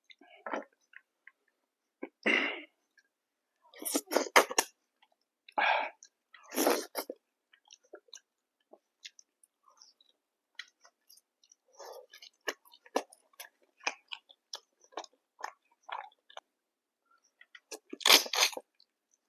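Close-miked eating: chewing and crunching with small wet mouth clicks, broken by several louder crunchy bites, the loudest cluster near the end.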